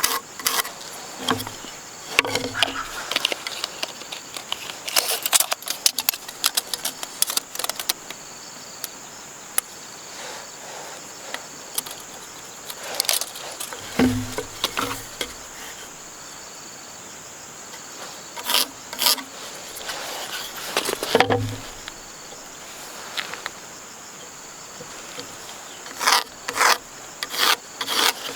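Steady high-pitched insect chirring runs under scattered sharp knocks and clatter that come in clusters. Heavier thumps fall about halfway through and again about three-quarters of the way in.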